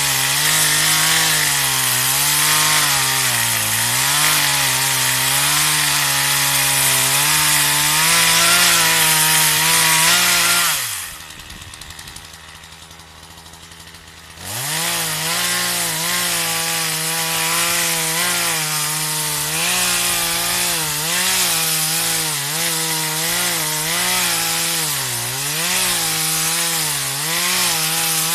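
Partner 340S two-stroke chainsaw running at high revs and cutting wood, its engine note dipping and recovering again and again as the chain bites. About eleven seconds in it drops back for roughly three seconds, then revs up again and carries on cutting.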